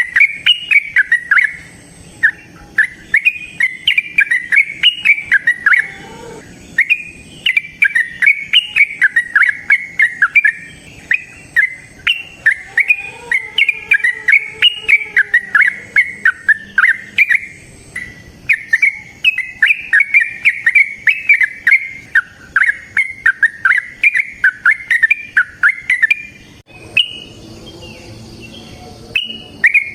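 Yellow-vented bulbul (trucukan) singing a long, rapid run of quick rising and falling notes ("ropel panjang"), broken by short pauses and a longer gap near the end.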